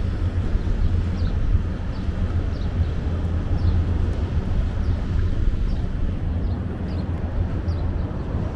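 Outdoor ambience: a steady low rumble, with short, high, falling chirps about once or twice a second, like a small bird calling.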